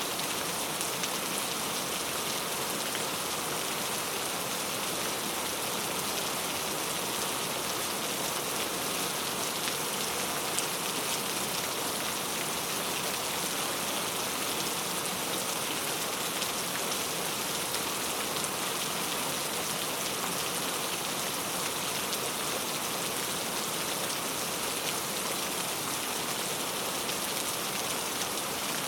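Heavy rain falling steadily on a camping tent, a dense, even hiss of drops with no breaks or changes.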